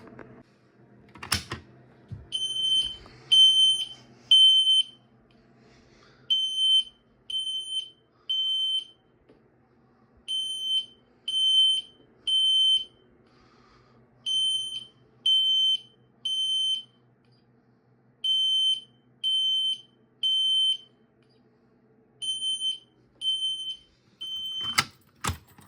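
System Sensor L-series fire alarm horn strobe sounding the temporal-3 evacuation pattern: three high-pitched beeps, a pause, and again, six rounds in all. A click comes just before it starts, and two more come near the end as it is shut off.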